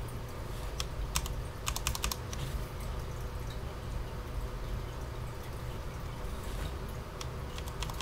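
Key presses on a Cherry MX 10.0N keyboard with low-profile Cherry MX Speed switches: a few scattered taps in the first two seconds, then a quick run of taps near the end.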